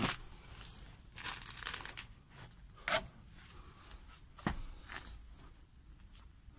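Scattered rustles and short knocks from someone moving about on stone wool insulation batts, with a burst of rustling about a second in and the loudest sharp knock about three seconds in.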